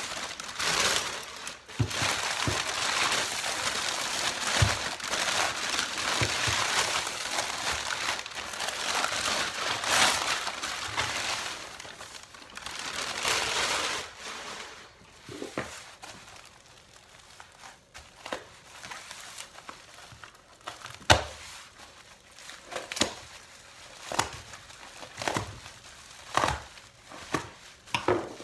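Packing paper crumpling and tearing as a parcel is unwrapped, a dense steady rustle for about the first fourteen seconds. Then quieter handling of plastic bubble wrap, with scattered sharp crinkles and snaps as it is cut open.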